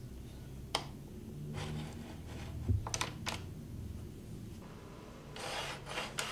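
A few light clicks and knocks as an aluminium mini T-track is fitted in the slot of an MDF jig board, then a rubbing scrape near the end as it slides along the slot.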